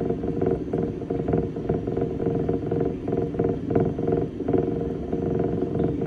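Steady mechanical running noise with a fast, even flutter: the machinery driving the water current through a lure test tank.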